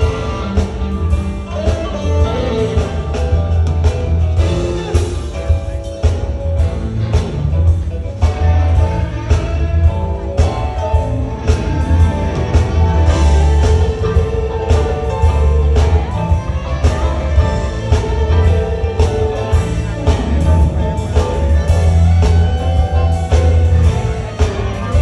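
Live blues band jamming: electric guitars soloing over keyboard and a steady drumbeat, played loud through the PA.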